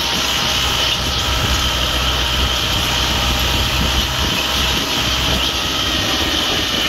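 Farm tractor engine running steadily while towing a passenger trailer, heard from the trailer just behind it as a constant low drone with no change in speed.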